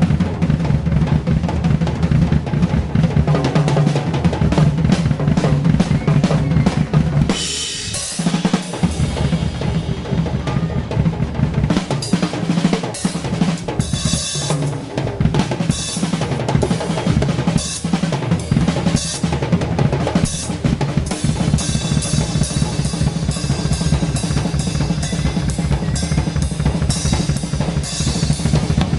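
Live drum kit solo: fast bass drum, snare and drum rolls without the band. Cymbal crashes come in about eight seconds in and grow denser through the second half.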